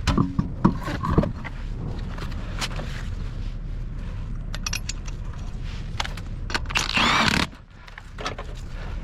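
Small clicks and scrapes of hand work at a car tire's valve stem, then a loud hiss lasting about half a second some seven seconds in.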